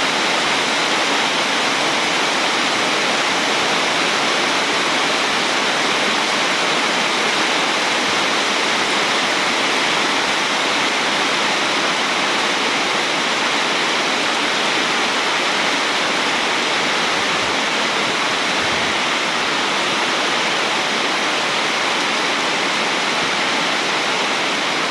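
Heavy rain pouring down, a steady dense hiss that does not let up.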